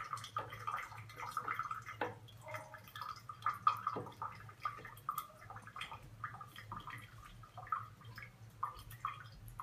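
Faint, irregular water drips and light clicks over a low steady hum.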